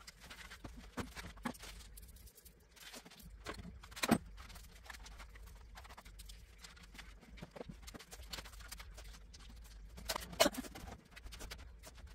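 Small objects being handled and set down on a vanity desk: scattered light knocks and clatters, with two louder knocks about four seconds in and about ten seconds in.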